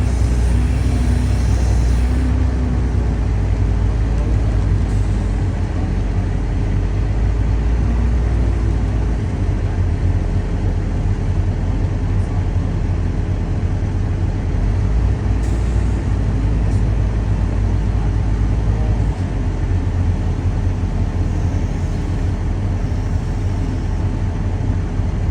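Diesel engine of a Komatsu wheel loader running steadily, a deep continuous drone whose low pitch shifts slightly a few times.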